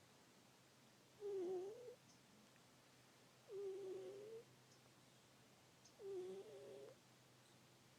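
A sleeping cat making soft, pitched little noises: three short calls, each under a second long, about two and a half seconds apart.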